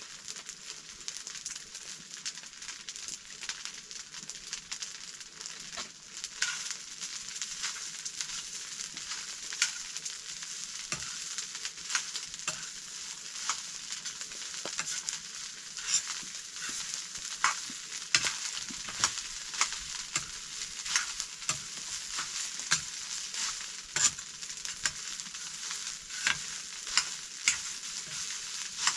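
Rice frying in a pan: a steady sizzle with many sharp clicks and scrapes from stirring, the clicks coming more often in the second half.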